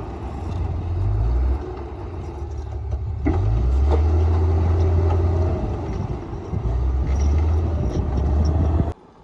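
Komatsu D58P bulldozer's diesel engine working under load, a heavy low rumble that swells and eases in surges, with a sharp knock a little past three seconds in. The sound cuts off suddenly near the end.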